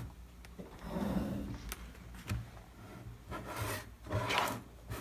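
Rubbing and handling sounds from hands moving equipment and cables on a desk, with several small clicks and knocks.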